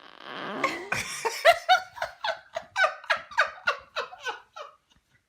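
High-pitched rhythmic laughter, a run of short falling "ha"s at about four a second, after about a second of breathy, rasping noise at the start.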